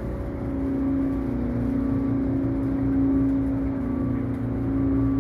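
Steady drone of a cruise boat's engine under way, a held low hum.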